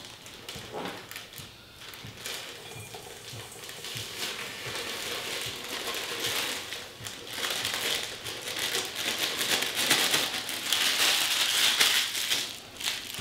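Plastic bag of dry cake mix crinkling as it is handled and emptied into a mixing bowl. The crackling grows louder toward the end as the empty bag is shaken and crumpled.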